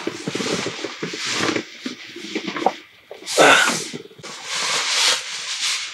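Rustling and rubbing noises in irregular bursts, the loudest a little past halfway through.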